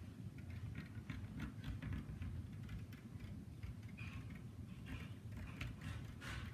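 Faint scratching of a pen drawing lines on paper, in many short, irregular strokes over a low steady room hum.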